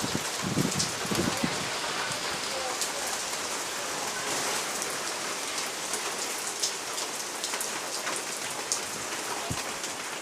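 Steady rain falling, with scattered sharp ticks of drops striking a nearby surface.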